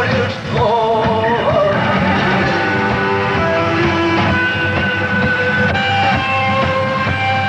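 Rock band playing live: electric guitars, bass guitar and drums, with a voice singing a line in the first second or two, then sustained guitar notes.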